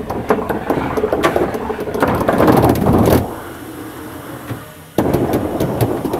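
A bank of sequenced solenoid air valves clicking open and shut in quick irregular runs, with a hiss of compressed air through the tubing. The clatter starts suddenly, dies down after about three seconds, and cuts back in abruptly at about five seconds.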